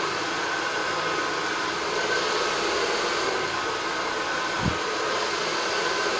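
Handheld hair dryer running with a steady rush of air, drying wet hair, with one brief low bump a little past halfway.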